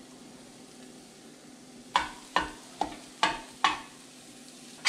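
Chopped scallion, ginger and garlic frying with a faint sizzle in a skillet of leftover bacon fat. From about two seconds in, a spatula knocks and scrapes against the pan about five times, roughly twice a second, as the aromatics are stirred.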